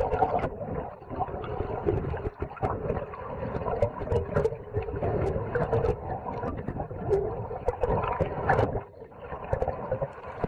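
Muffled underwater water noise picked up by a submerged camera: a dull, shifting rumble and swish with scattered sharp clicks.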